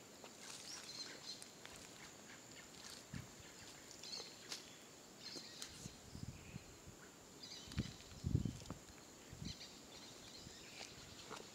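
Faint outdoor ambience: repeated short high chirps over a steady high-pitched drone, with a few low thumps around eight seconds in.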